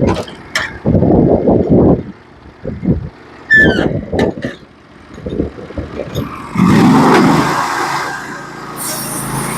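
Irregular knocks and bumps with a brief squeak, then near the end a small gas engine on a portable bandsaw sawmill starts up and settles into a steady run.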